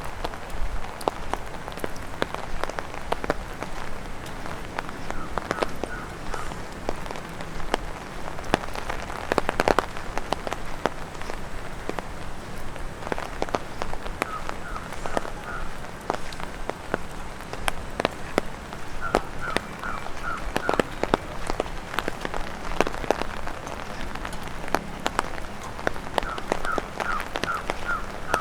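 Raindrops tapping on an umbrella: a dense, irregular patter of sharp taps over the steady hiss of rain. Several times, a run of four or five short, evenly spaced high calls sounds through it.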